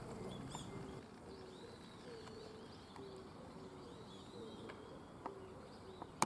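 Birds calling: short low notes repeated about twice a second, with fainter higher chirps above them. A sharp click comes near the end.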